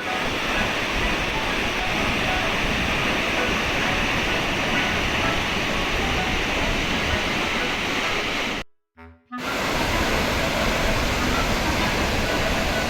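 Akiu Great Falls: the waterfall's water rushing in a steady loud noise that breaks off for under a second about nine seconds in, then carries on.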